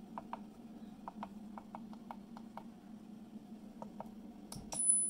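Button presses on a Resonant Light Progen3 frequency generator keypad: a dozen or so short ticks in small runs, over a low steady hum. Near the end there is a knock, then a steady high-pitched whine starts as the PERL M+ plasma tube machine switches on.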